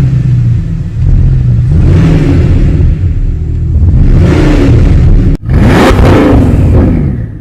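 Bugatti Chiron's quad-turbo W16 engine being revved up and down several times. The sound breaks off abruptly about five seconds in, then more revs follow.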